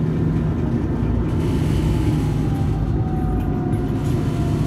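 Eurotram tram running, a steady heavy rumble with a faint whine that slowly falls in pitch through the second half.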